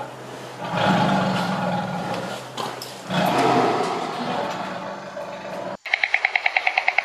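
Tiger growling and snarling while it guards a piece of meat: long, rough, rumbling growls that swell about a second in and again about three seconds in, each fading off. The growling stops abruptly near the end.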